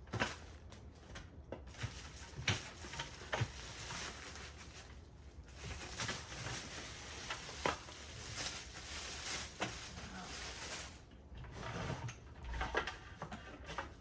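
Light handling noises: scattered soft clicks and knocks over a faint steady hiss, with a dull low thump about twelve and a half seconds in.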